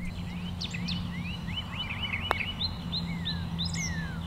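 Birds chirping, a string of short whistled calls that glide up and down. About halfway comes one sharp click: a putter striking a golf ball.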